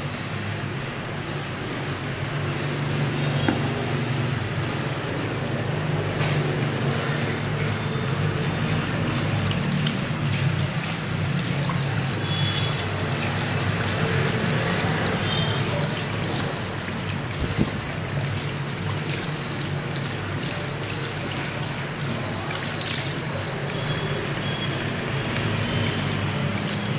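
Water running from a handheld shower head at a shampoo basin, rinsing foam off the face and hair, over a steady low hum.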